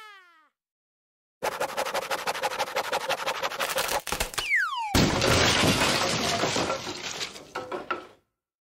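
Edited-in comedy sound effects: a rapid rattling run, a single falling whistle, then a loud crashing, shattering noise that cuts off near the end.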